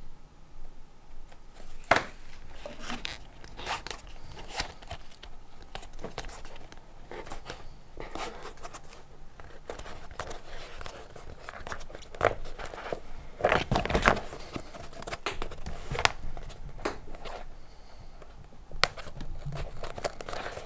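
Leather being hand-sewn: thread pulled through pre-punched holes in a leather pouch, giving irregular rasps and soft ticks as the leather is handled, busiest about two-thirds of the way in.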